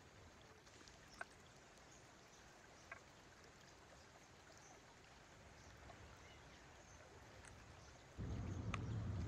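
Faint, steady rush of a river, with a couple of small clicks. About eight seconds in, a much louder low rumble starts abruptly.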